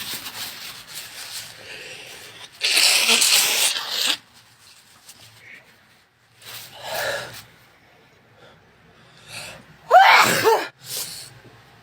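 Sneezing set off by a nasal swab: several separate sneezes, a long noisy one about three seconds in, a weaker one near seven seconds, and the loudest, voiced one near ten seconds.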